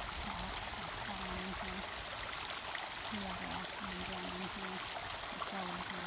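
Runoff from snowmelt and heavy rain flowing swiftly in a shallow sheet under a wire fence: a steady, even sound of running water.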